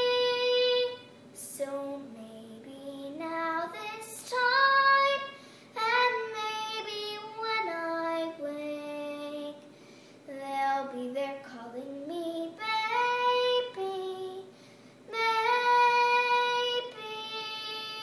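A young girl singing a show tune solo, in phrases with long held notes and short pauses between them.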